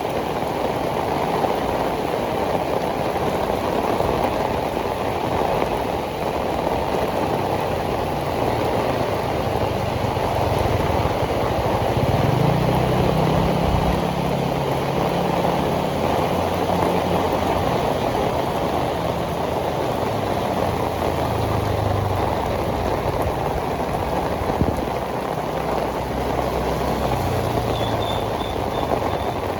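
Heavy tropical rain pouring steadily onto pavement. From about a quarter of the way in until near the end, the low hum of a motor vehicle's engine rises and falls under the rain, loudest a little before the middle.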